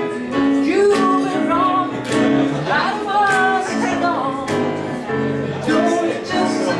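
Live male vocal sung into a microphone over guitar accompaniment, with long held notes that waver in pitch.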